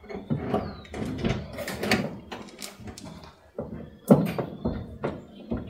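Irregular clatter of hand work on hoses and fittings in a car's engine bay: clicks, rustling and knocks, with a sharper knock about four seconds in.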